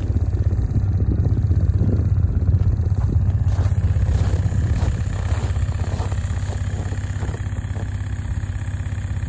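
Cushman Truckster's engine idling steadily in −5 °F cold after its cold start.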